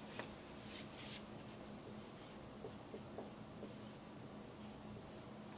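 Dry-erase marker writing on a whiteboard: a series of short, faint scratching strokes as an equation is written out.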